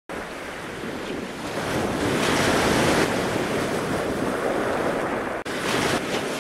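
Wind buffeting the microphone over rushing water from a kiteboard riding across the sea. The sound drops out for an instant about five and a half seconds in, then carries on.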